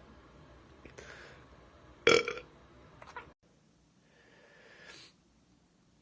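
A man belching loudly once, about two seconds in: a beer burp, with fainter breathy sounds before and after.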